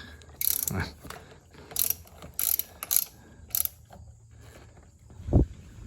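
Hand socket ratchet clicking in several short strokes, tightening the bolts of a new starter on an outboard motor. A single dull knock comes near the end.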